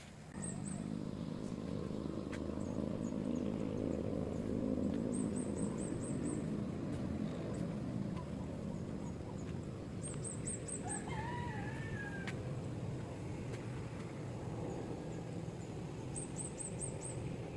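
A bird calls once, a bending, drawn-out call about eleven seconds in, over a steady low rumble. Short bursts of rapid, very high-pitched ticks recur every five seconds or so.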